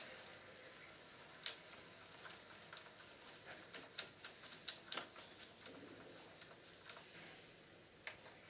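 Faint, irregular clicking and ticking of small plastic parts being handled in an opened VCR tape mechanism, with a sharper click about a second and a half in and a cluster of clicks around five seconds.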